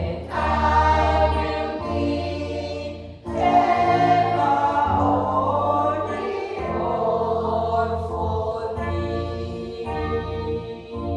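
A small church congregation singing a hymn together in long held notes, with short breaks between phrases about three and six and a half seconds in.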